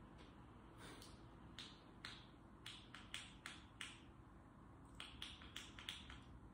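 Faint, sharp clicks in irregular quick runs, about fifteen in all, from a small handheld remote's button being pressed again and again: it does not seem to be working.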